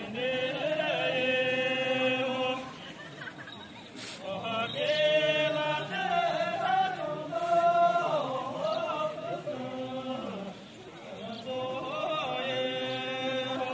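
A group of voices singing a traditional Tibetan dance song together. They sing long phrases of held, wavering notes, with short breaks about 3 and 10 seconds in.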